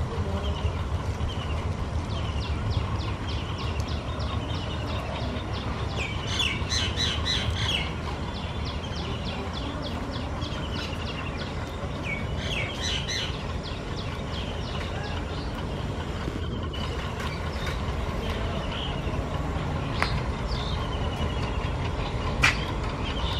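Diesel locomotive of a loaded oil-tanker freight train approaching slowly, its engine a low steady rumble, while birds chirp repeatedly over it; one sharp click near the end.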